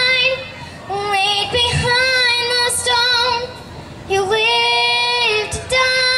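A young girl singing a slow gospel song into a handheld microphone, in several long held notes that waver slightly in pitch.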